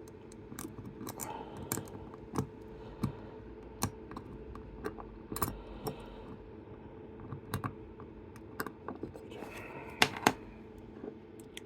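Irregular small metallic clicks and ticks of a lock pick working a detector lever free of its spring inside a small Chubb lever lock, with two louder clicks about ten seconds in.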